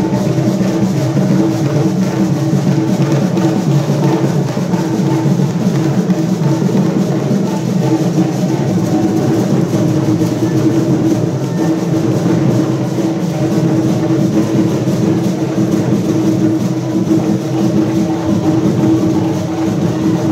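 Loud drum-led music playing steadily without a break.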